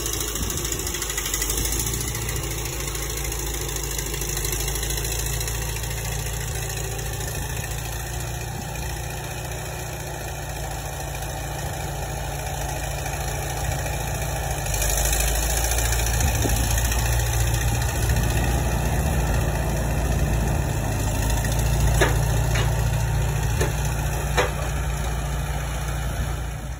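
Allis-Chalmers D17 tractor's four-cylinder engine running steadily while it works its front-end loader. It gets louder about halfway through, and a few sharp clicks come near the end.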